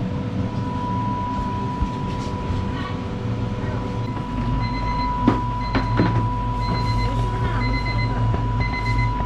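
A steady machine hum and high steady whine, the hum growing heavier about four seconds in, with short beeps repeating through the second half and a couple of sharp knocks.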